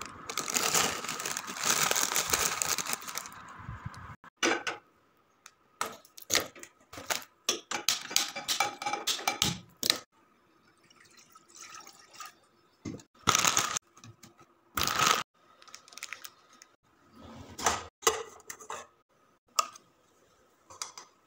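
A plastic instant-ramen packet crinkling under the fingers for the first few seconds, then a string of short knocks, clinks and brief rustles of cookware being handled at a gas stove, with quiet gaps between them.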